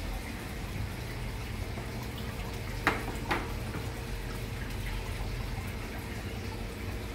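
Aquarium water running steadily, a continuous trickle with a low hum, typical of a tank's filter. Two short clicks come about three seconds in.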